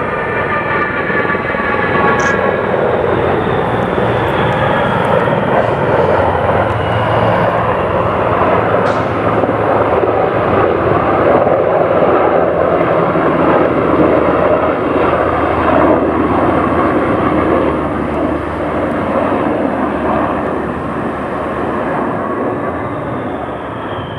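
Low pass of a military formation: an HC-130J Hercules's four turboprop engines and the rotors of two HH-60G Pave Hawk helicopters, loud and steady. It swells to a peak about halfway through and then fades as the formation passes, with a high whine falling in pitch at the start.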